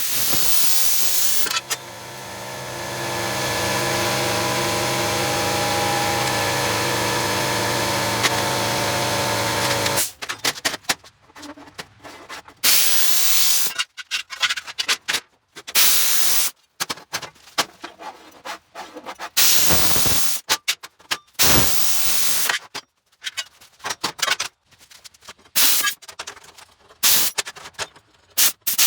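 Evolution metal-cutting chop saw running and cutting through steel plate for about ten seconds, its note dipping as the blade bites, then a string of short, sharp hissing bursts with gaps between them.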